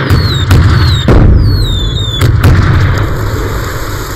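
Anti-aircraft gun firing: about five heavy shots in quick succession over a continuous deep rumble. Several shots are followed by a short falling whistle.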